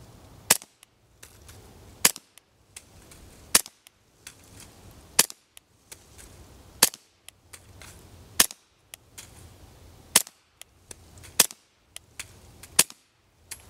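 Beretta M9A3 9mm pistol firing subsonic 147-grain ammunition through a Griffin Armament Revolution 9 suppressor. Nine evenly paced shots about a second and a half apart, each a short sharp report, quiet for a gunshot.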